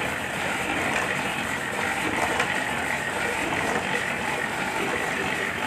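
Belt-driven screw oil expeller pressing mustard seed, running steadily with a dense, even mechanical noise.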